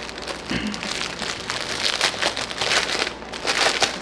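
Packaging of a cross-stitch kit crinkling as it is handled and opened, an uneven run of crackles.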